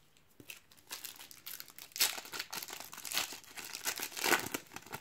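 A Panini trading-card packet being torn open by hand, its wrapper crinkling in irregular bursts, loudest about two seconds in and again near the end.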